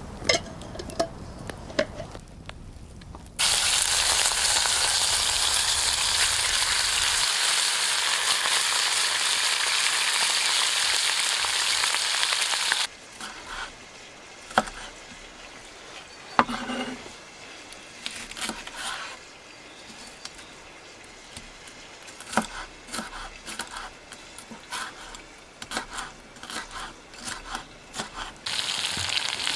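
Food frying and sizzling in a cast-iron pot, a loud, steady sizzle that cuts in abruptly a few seconds in, stops just as suddenly about ten seconds later, and returns near the end. Between these stretches there are quieter scattered clicks and knocks.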